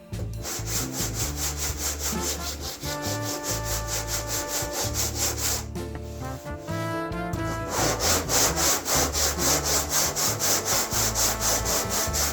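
Hand sanding a car body panel with a sanding block: quick, even back-and-forth scraping strokes, about four a second, getting louder in the second half.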